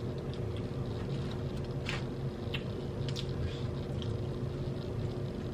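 A person chewing food, with a few short wet mouth sounds about two to three and a half seconds in, over a steady low hum.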